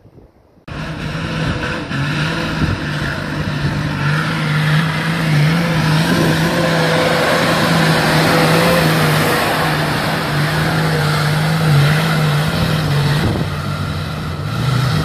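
Turbo-diesel engine of an off-road 4x4 running hard under load as it climbs steep, rough ground. The engine sound cuts in abruptly less than a second in and stays loud and steady.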